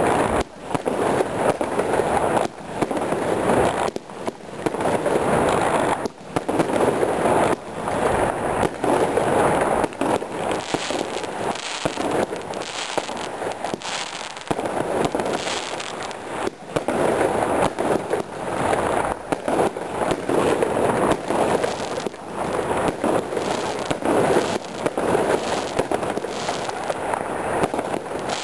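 Jorge 'Hot Stars' firework cake (DP0020) firing one shot after another, a sudden bang about every one to two seconds, each trailing off as its stars burst.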